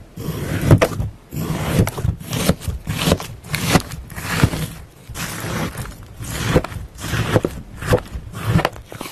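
Kitchen knife cutting through a firm block of slime, in quick repeated strokes about two a second. Each stroke is a short scratchy slice with a low thump.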